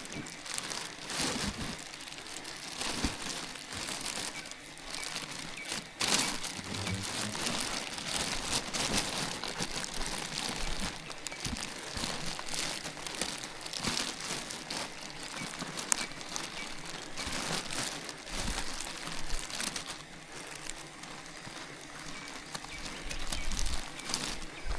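Continuous crinkling and crackling, made of many small sharp clicks in irregular clusters.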